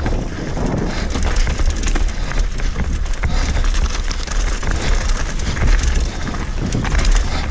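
Enduro mountain bike riding down a rocky trail: tyres crunching over loose stones and the bike rattling with constant small knocks, over a steady low wind rumble on the microphone.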